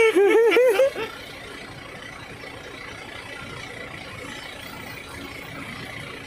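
A person's voice calling out for about a second in a quickly rising and falling, sing-song tone, then a steady, even background noise with no distinct events.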